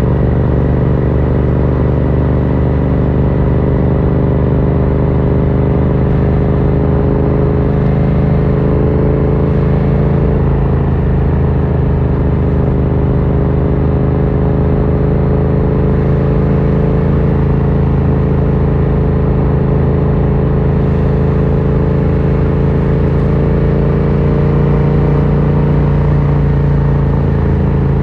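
Yamaha MT-07's 689 cc parallel-twin engine through an Akrapovic carbon full exhaust, running at a steady cruise with slight rises and falls in pitch.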